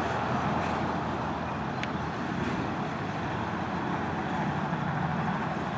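The last cars of a freight train rolling away on the rails, heard as a steady low noise with no clear clicking rhythm.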